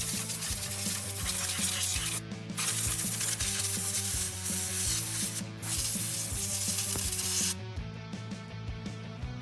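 Compressed-air blowgun hissing in long blasts as it blows the kart engine clean, the finishing step of an oil change. The hiss breaks off briefly about two and five and a half seconds in, and stops about seven and a half seconds in.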